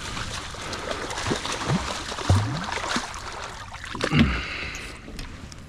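Water sloshing and slapping against the hull of a small fishing boat, with a steady hiss of moving water. A few heavier low slaps come through, the loudest about two seconds and about four seconds in.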